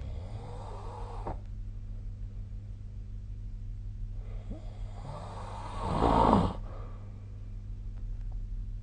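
A sleeping person snoring: one snore ends about a second in, then after a pause a longer, louder snore builds and cuts off sharply a little past the middle. A steady low hum runs underneath.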